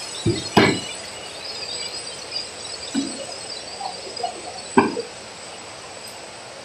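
A few short knocks and thumps, two near the start, one about three seconds in and two close together near the end, over a steady background hiss with a thin high whine.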